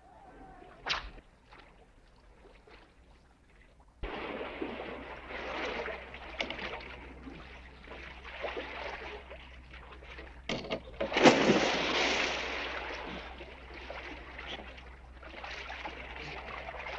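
A sharp knock about a second in. Then, suddenly at about four seconds, water splashing and sloshing sets in and keeps going, loudest in a heavy splash about eleven seconds in.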